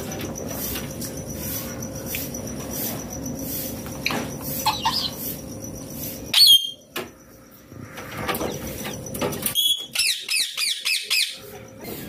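Indian ringneck parakeet calling: one loud, short shrill screech about six seconds in, and near the end a quick run of shrill chattering calls. Faint clicks come before the calls.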